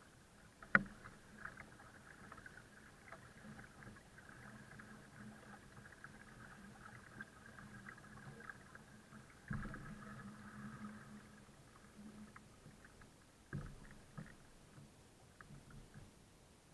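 A folding kayak being towed slowly through water, with faint water sounds and a steady low hum. Three sharp knocks come through, the loudest about a second in. The hum fades toward the end.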